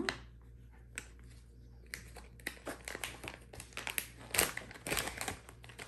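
Crinkly plastic toy packaging being handled and opened by hand, a rapid irregular crackling that starts about two seconds in and grows louder toward the middle.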